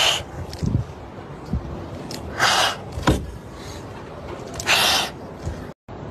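Frightened kittens hissing defensively: three short breathy hisses about two seconds apart, with a few low thumps in between.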